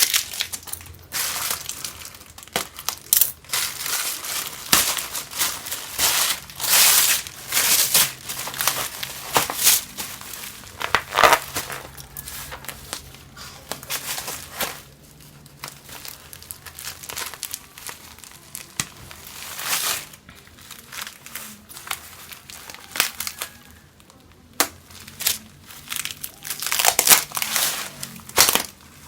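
Packaging crinkling and crackling in irregular bursts as it is handled and pulled open, with a faint tear or two. Busiest in the first half, quieter in the middle, and picking up again near the end.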